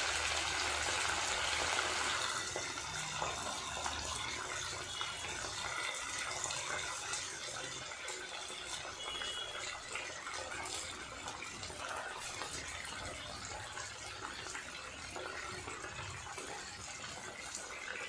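Marinated chicken pieces deep-frying in hot oil: a dense, steady sizzle with fine crackling, strongest in the first couple of seconds and then settling slightly lower.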